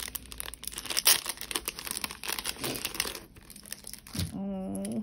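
Clear plastic packaging sleeve crinkling and rustling in irregular crackles as an acrylic key ring is slid out of it and off its card backing. A short hummed voice sound comes near the end.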